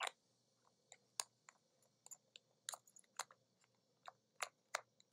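Faint, sharp clicks and ticks, a dozen or more at irregular intervals, from handling a vape mod with a SMOK TFV16 sub-ohm tank.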